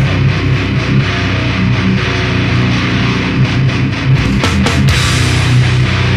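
Instrumental passage of heavy metalcore: loud, distorted guitars chugging over drums, with no vocals. A few sharp accented hits come a little past halfway.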